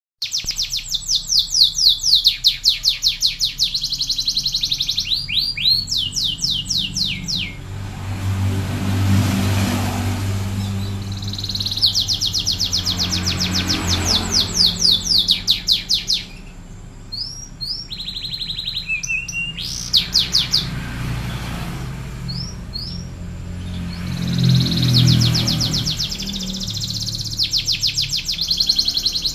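Domestic canary singing vigorously in long, fast trills of rapidly repeated high notes, broken by short pauses and a few quick sliding whistles. A low rumble swells and fades underneath at times.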